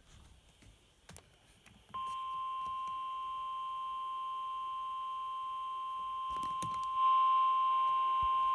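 Emergency alert tone: a single steady, high beep, the 1050 Hz warning alarm tone that precedes a National Weather Service warning broadcast. It starts about two seconds in after a short quiet stretch with faint clicks, and gets louder around seven seconds in. It signals that a severe weather warning message is about to be read.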